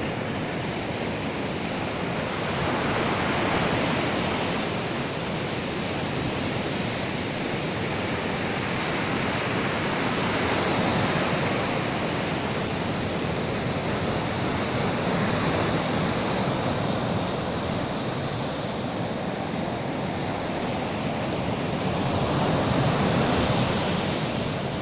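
Sea surf washing onto the shore: a steady rushing hiss that swells and eases every several seconds as waves come in.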